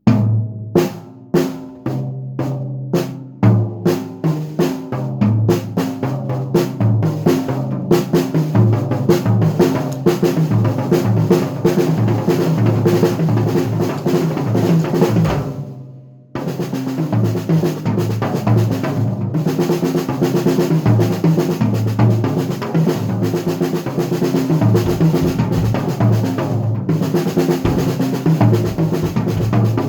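Solo drum playing: separate strokes at first, growing faster and denser into rolls, a brief stop about halfway through, then continuous playing.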